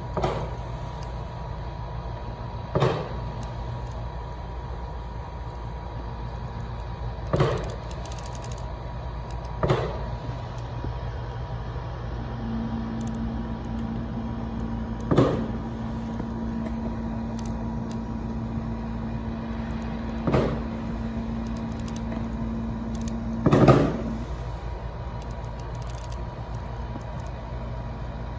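Fireworks going off out of sight: seven sharp bangs a few seconds apart, the loudest near the end, each dying away quickly. Under them runs a steady mechanical hum.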